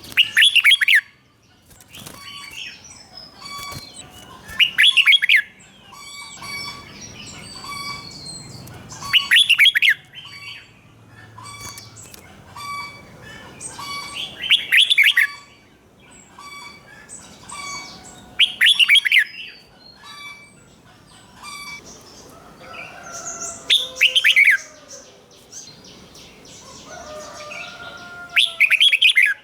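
Red-whiskered bulbul singing: a short loud phrase about every four to five seconds, seven in all, with softer chirps and notes between them.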